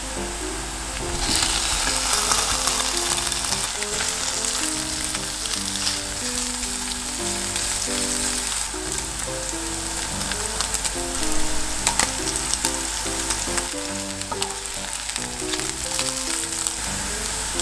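Diced Spam and sliced green onions sizzling in oil in a frying pan, louder from about a second in, with the clicks and scrapes of a wooden spatula stirring them. Background music plays underneath.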